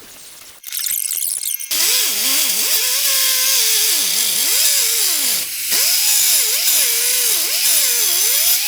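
Handheld power tool working the metal of a wheel spacer, starting up about two seconds in; its motor pitch keeps rising and falling as it bogs under load and picks up again, over a loud hiss.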